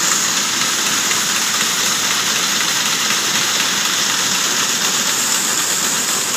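A row of automatic glove knitting machines running together, a steady dense mechanical hiss and whir.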